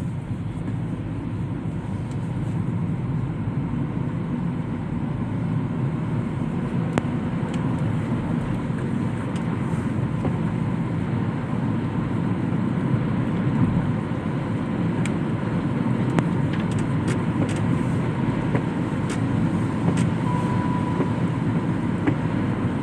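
Steady rumble of a moving road vehicle, engine and tyre noise, with a few light clicks and a short beep near the end.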